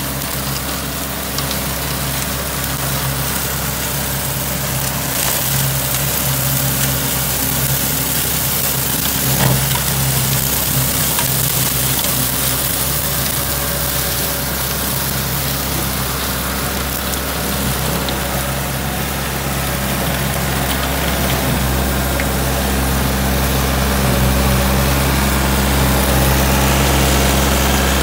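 John Deere 3720 compact tractor's three-cylinder diesel engine running steadily under load while driving a Fehrenbach Bingo 1.60 flail mower, its spinning rotor chopping tall grass with a steady hiss over the engine. It grows louder over the last third.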